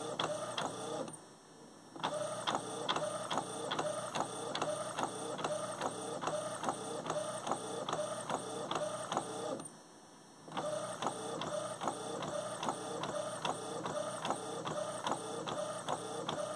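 Inkjet printer printing a photo onto sublimation paper: the print-head carriage shuttles across the page with a rhythmic mechanical ticking and whirring, about four strokes a second. It stops briefly about a second in and again near ten seconds in.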